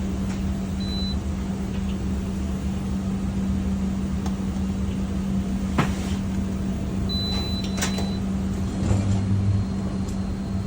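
Commercial induction cooker running, with a steady electrical hum and cooling-fan noise. A short high beep comes about a second in and a longer one around seven seconds, with a few sharp clicks between them.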